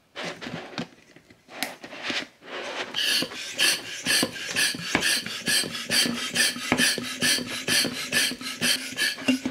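Plastic hand pump of a Doctor Squish squishy maker being worked with a quick, even rhythm of about four or five strokes a second, after a few seconds of plastic handling noises. The pumping opens the balloon out inside the clear dome.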